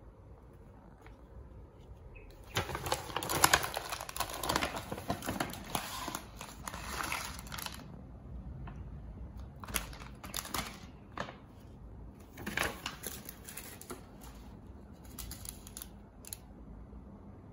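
Plastic ramen packets crinkling and rustling in the hands, with a long stretch of crinkling from about three to eight seconds in, then several shorter rustles as the sachets are laid out.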